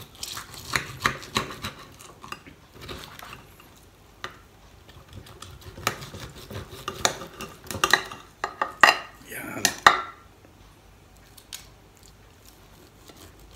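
Steel knife and fork clinking and scraping against a glass baking dish while slicing a slab of roasted pork spare ribs. The clinks are irregular, the loudest about eight to ten seconds in.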